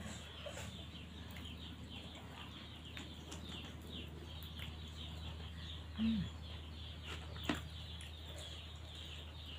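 Small birds chirping over and over, quick falling chirps, with a low steady hum under them. A short, louder, low call comes about six seconds in, and a single sharp click about a second and a half later.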